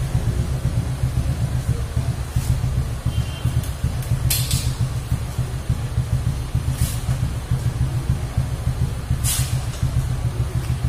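Kawasaki Fury 125 motorcycle engine idling steadily with a low throb. Four short hissing sounds come about every two and a half seconds over it.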